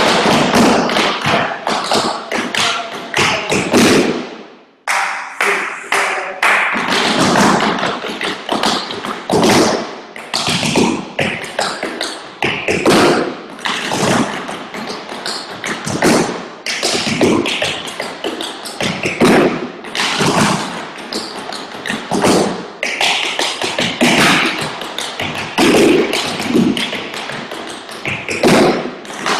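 Tap shoes striking wooden tap boards as several dancers tap a fast, continuous run of steps, with a short pause about four and a half seconds in.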